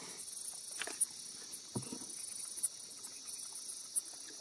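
Crickets and other night insects chirring steadily at a high pitch, with repeated short chirps. A few faint knocks sound within it.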